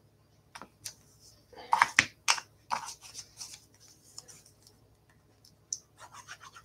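Clear acrylic stamp block and ink pad handled on a craft table: a run of light taps, clicks and rustles, loudest about two seconds in, then a few fainter ticks.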